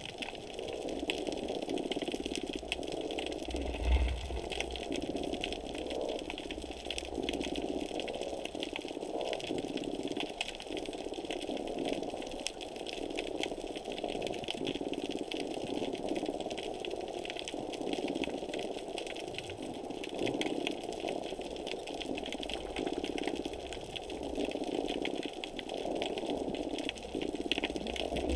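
Underwater ambience heard through a camera's waterproof housing: a muffled wash of water swelling and easing every second or two, with a fine crackle of tiny clicks over it. A low thud about four seconds in, and another near the end.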